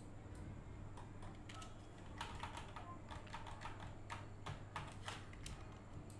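Faint, irregular clicking of a computer keyboard and mouse, several clicks a second in quick runs through the middle, over a steady low hum.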